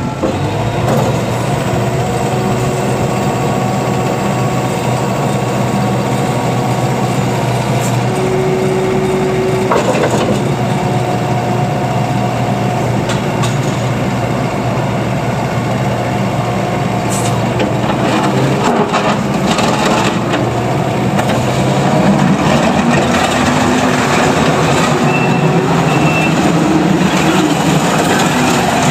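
Takeuchi TL12 tracked skid steer loader's Kubota diesel engine running steadily, with a few metallic knocks and clanks partway through; the engine note shifts and rises a little in the last few seconds.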